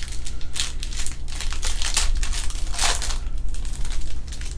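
Crinkling and rustling of trading-card packaging handled by hand: a run of short crackles, with the loudest crinkle about three seconds in.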